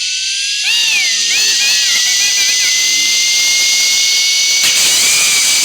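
Cartoon sound effect of a spinning toy top whirring: a loud steady hiss with a whine that slowly rises in pitch. A baby's high babbling comes over it about a second in and again near the end.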